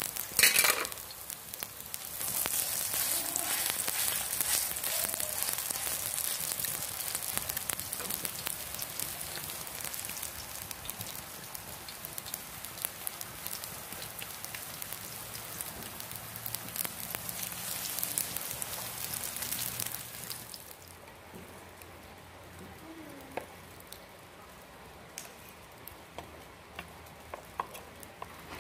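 Beef chapli kababs sizzling and crackling in fat on a hot iron tawa, after a sharp knock about half a second in. About two-thirds of the way through, the sizzling stops and a quieter hiss of rain with scattered drips is left.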